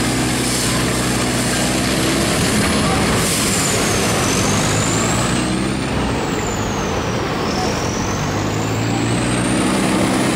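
Motor vehicle engine running steadily under a dense rushing noise, with a faint high whine that dips and rises again twice.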